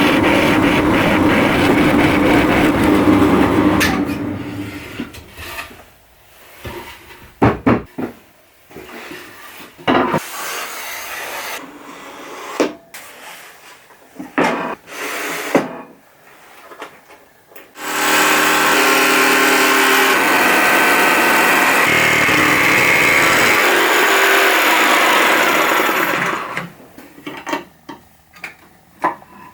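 A handheld power tool running in two long stretches: about four seconds at the start, and about eight seconds from roughly two-thirds of the way in. Between them come scattered knocks and handling clatter.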